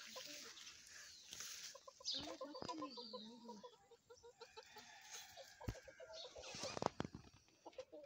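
Two-month-old aseel chicks clucking softly in quick runs of short notes while foraging, with scattered rustles and a few sharp taps near the end.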